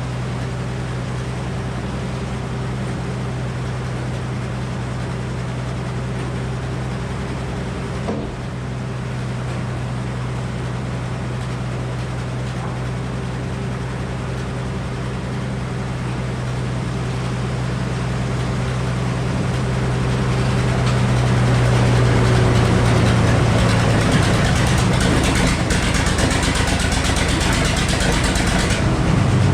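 Gasoline engine driving a Frick sawmill's 48-inch circular saw, running steadily. From about twenty seconds in the sound grows louder and noisier as the blade cuts through a poplar log.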